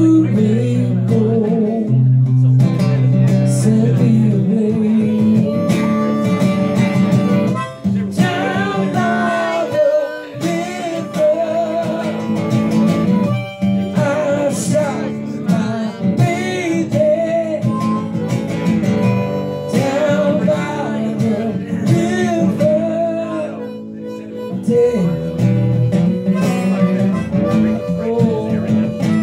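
Live acoustic guitar accompanying a song, with a melody rising and falling above the chords.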